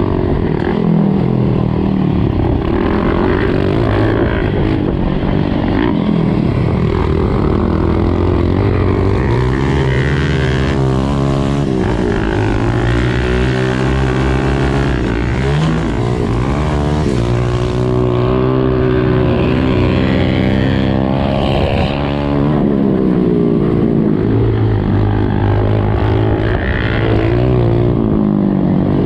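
Honda CRF125F dirt bike's single-cylinder four-stroke engine heard from on the bike, revving up and down with throttle and gear changes, its pitch rising and falling again and again.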